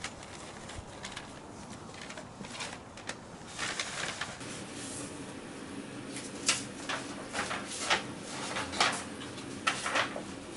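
Pages of a large paper ledger being handled and turned on a desk: a run of short, sharp paper rustles and flaps, thickening in the second half.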